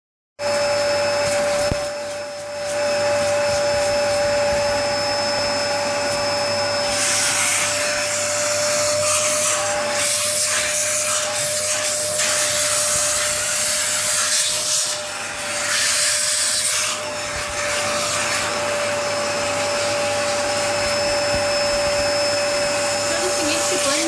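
Vacuum cleaner running, with a steady motor whine over rushing air. From about seven to seventeen seconds in, the air hiss turns brighter and uneven as a puppy's mouth closes over the nozzle and lets it suck.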